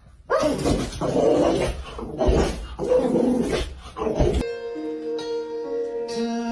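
A dog vocalizing in three or four long, rough, loud bursts, then music with held notes starts about four and a half seconds in.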